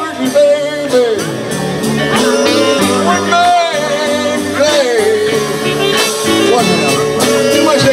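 A live band playing a soul song: electric guitars, bass and saxophones under a male lead singer, with a melody line that glides and holds notes.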